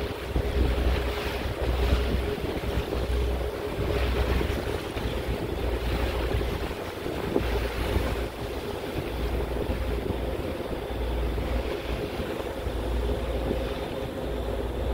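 Wind gusting against the microphone on a ferry deck, over the steady hum of the ferry's engines and the rush of water along the hull.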